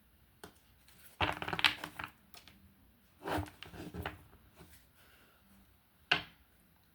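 Tarot cards being handled: two bursts of shuffling and rustling of just under a second each, then one short sharp slap of a card about six seconds in.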